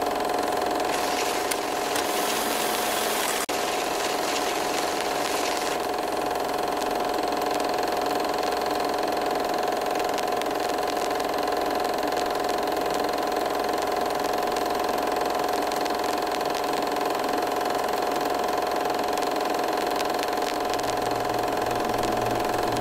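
A steady droning hum made of several held tones over a constant hiss. A brighter burst of hiss comes about a second in and fades out around six seconds in.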